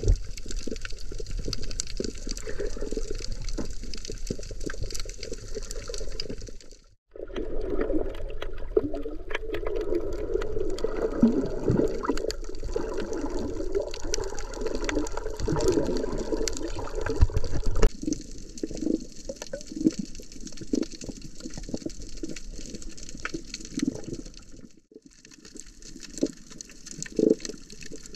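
Water moving around a microphone held underwater, a muffled wash with many small clicks and crackles. It drops out briefly twice, about seven seconds in and near the end.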